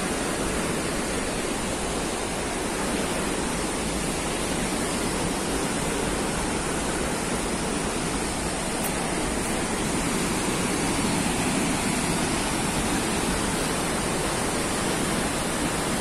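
Palovit waterfall, a high-flow 15 m waterfall, rushing steadily: an even, unbroken wash of falling water.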